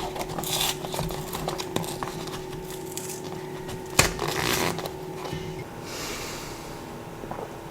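Kitchen handling sounds as coffee is made: scraping, rustling and small clicks of utensils and crockery, with one sharp knock about four seconds in. A faint steady hum runs underneath and stops near the end.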